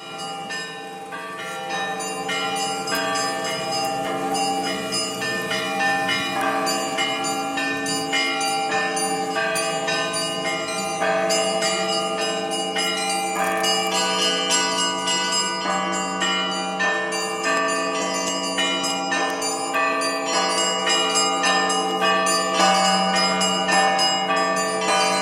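Russian Orthodox church bells rung by hand by a live bell-ringer, in a continuous peal: quick strikes on the smaller bells over the lingering hum of the larger ones.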